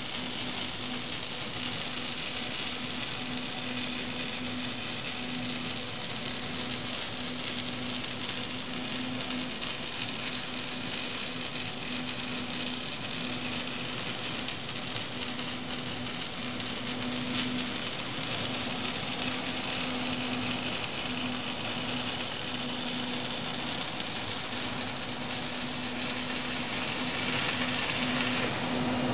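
Robotic MIG welding arc running continuously on heavy steel plate: a steady sizzling hiss with a low buzz underneath.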